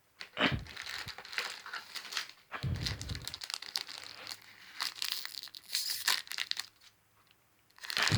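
Foil wrapper of a trading-card booster pack being torn open and crinkled in the hands, in irregular crackles, with a couple of dull handling thumps.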